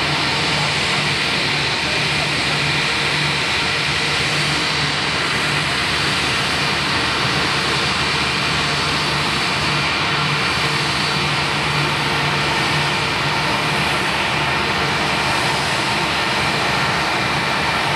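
Airbus A319's IAE V2500 turbofan engines at low taxi thrust, running steadily with a whine over a rumble as the airliner taxis.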